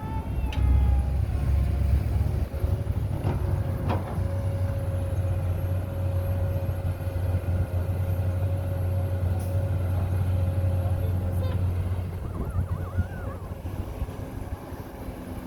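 Excavator running with a steady low hum and a steady whine, which cut off about twelve seconds in.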